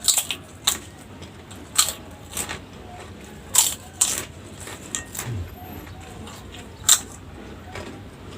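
Close-miked chewing of crunchy food: about eight sharp, irregular crunches over a low hiss, the loudest near the end.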